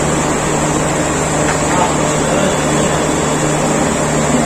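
Steady machine noise: a low, constant hum under an even rushing hiss.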